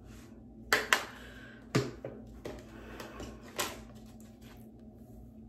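Several sharp clicks and knocks from small objects being handled, the loudest a quick pair about three quarters of a second in, then single knocks over the next few seconds.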